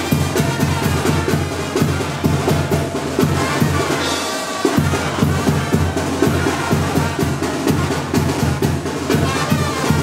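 Band music with a fast, steady beat on bass drum and snare, about four drum strokes a second.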